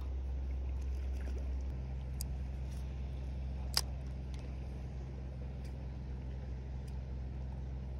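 A steady low machine hum that deepens and fills out about two seconds in, with a few faint ticks and one sharp click near the middle.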